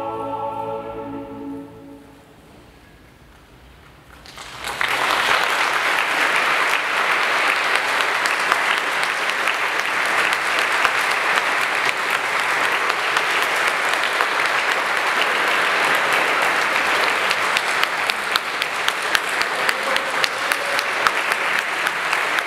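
Mixed chamber choir with cello holding the final chord of a Baroque motet, which dies away over about two seconds. After a short pause, about four and a half seconds in, the audience applauds steadily, with single claps standing out more near the end.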